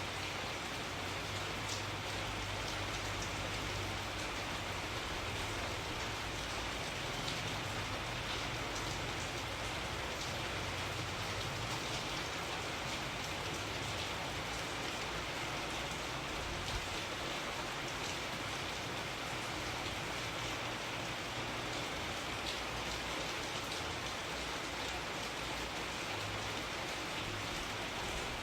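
Steady rain falling, an even hiss with many small drop ticks and no change in level.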